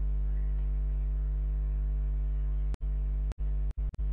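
Steady electrical mains hum with a buzzy stack of overtones from the recording setup. It drops out briefly four times near the end.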